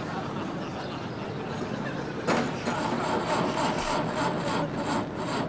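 A vehicle engine idling over street noise, with a sudden knock about two seconds in followed by light clattering and rattles.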